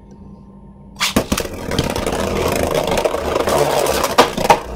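Two 3D-printed Beyblade Burst tops launched into a plastic Beyblade stadium about a second in, landing with sharp clicks. They then spin and scrape across the stadium floor in a steady whirring rattle, with a few sharp clacks near the end as they strike each other.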